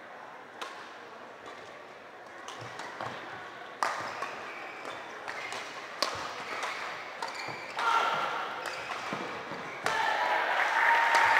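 Badminton rackets hitting the shuttlecock in a doubles rally, sharp cracks about every one to three seconds, echoing in a large hall. Spectators' voices rise near the end as the rally finishes.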